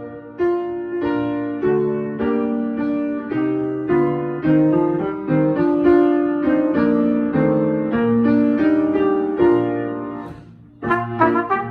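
Piano accompaniment to a trumpet solo playing an interlude of chords and melody on its own. It fades to a short pause near the end, then a new phrase starts.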